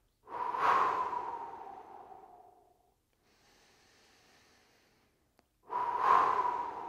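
A man doing double exhale breathwork: a forceful double breath out through the mouth that starts suddenly and fades over about two and a half seconds, a quiet inhale through the nose, then the next double exhale near the end.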